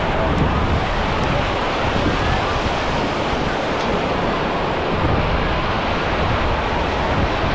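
Ocean surf washing on a beach, a steady rushing noise, with wind buffeting the microphone.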